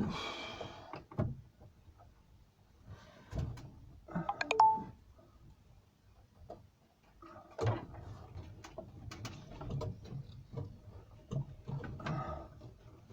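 Irregular knocks, clicks and rattles of things being handled in a small enclosed space, with a short hissing burst at the very start. No engine is running.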